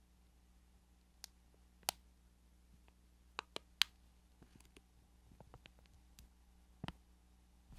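Plastic candy wrapper handled in the fingers: about half a dozen soft, scattered clicks and crinkles, against a faint steady hum.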